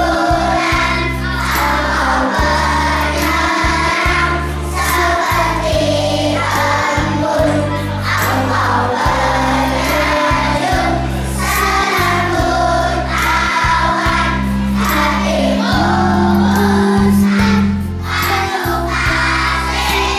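A group of young children singing together over a music backing track with a steady beat.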